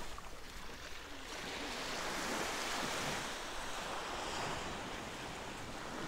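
Small Baltic Sea waves washing onto a sandy shore: a steady hiss of surf that swells about two seconds in and eases off again toward the end.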